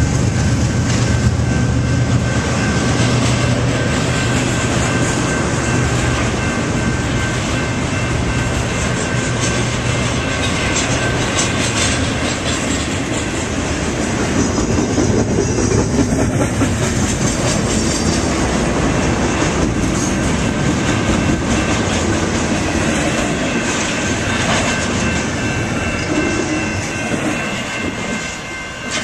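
Cars of a BNSF double-stack container train rolling past: a steady rumble of steel wheels on rail with occasional clicks, easing a little near the end.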